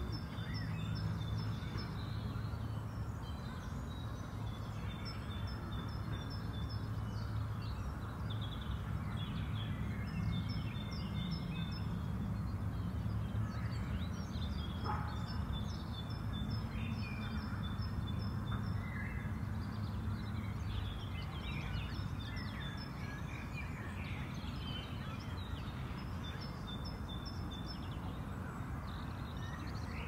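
Small birds chirping outdoors, one repeatedly giving a quick series of short high notes every few seconds, over a steady low rumble of background noise.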